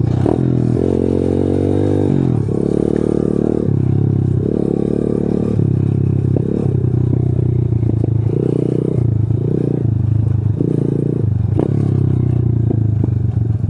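A 125 cc four-stroke single-cylinder pit bike engine heard from the rider's seat, the throttle opening and closing in surges about once a second on a bumpy dirt trail. A few sharp knocks and rattles come from the bike over bumps.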